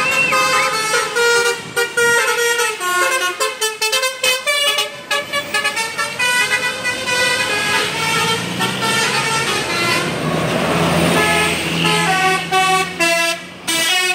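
A tour bus's 'telolet basuri' musical horn playing a fast melody of short tooting notes that step up and down in pitch. In the second half the bus's engine runs steadily underneath.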